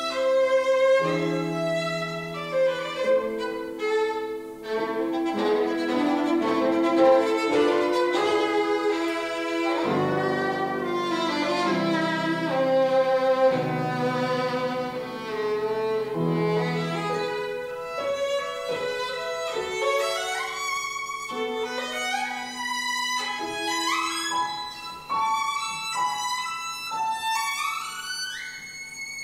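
Violin playing a melody with grand piano accompaniment, the violin's sustained bowed notes on top.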